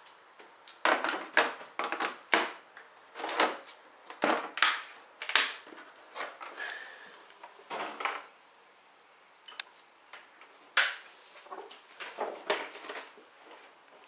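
Tools being put away in a plastic socket-set case: a run of sharp clicks and knocks, with a lull of about two seconds a little past the middle before a few more knocks.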